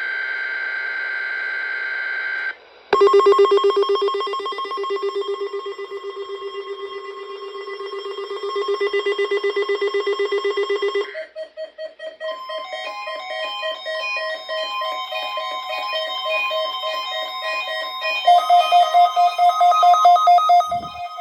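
Electronic emergency alert tones from a weather alert radio receiver during a weekly test. A steady tone lasts about two and a half seconds. After a short gap comes a rapidly pulsing lower tone for about eight seconds. From about eleven seconds in, a repeating run of short beeps at several pitches follows, with a higher pitch added near the end.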